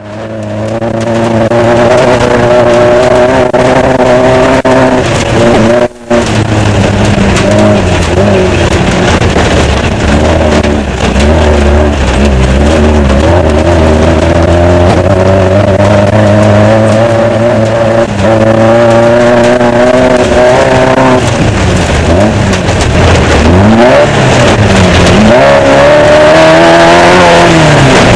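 Off-road desert race car's engine heard from an onboard camera, running hard under a broad rushing noise, its pitch rising and falling with throttle and gear changes, with deeper swoops near the end. The sound cuts out for a split second about six seconds in.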